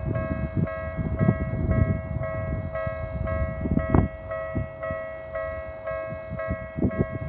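Electronic Tokyu-type level-crossing warning bell ringing steadily, about two dings a second, over a low rumbling noise.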